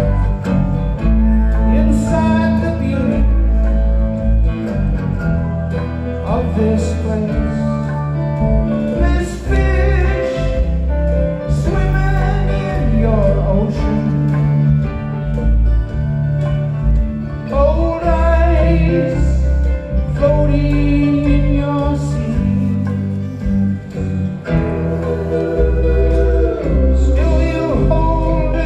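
Live band music: guitar and bass playing under a lead voice singing.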